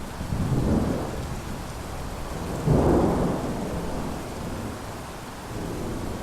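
Thunderstorm: steady rain hiss with rolling thunder, two low rumbles swelling about half a second in and just under three seconds in, the second the louder.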